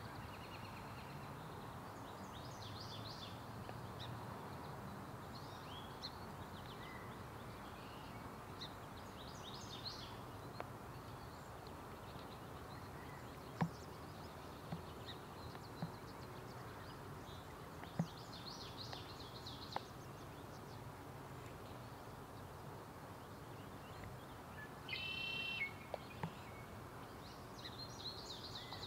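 Scattered bird calls over a steady hiss of light rain: short, high chattering phrases every few seconds and one louder call of about a second near the end, with a few sharp taps.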